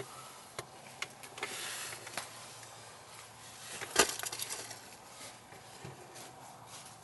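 Rustling and crunching of dry leaves and debris, with scattered small clicks and one sharp knock about four seconds in.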